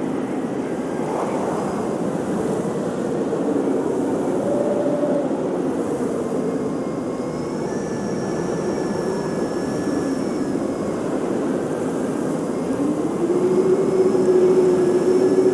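Blizzard wind rushing and gusting, with wavering whistling tones that rise and fall. A gust swells louder near the end.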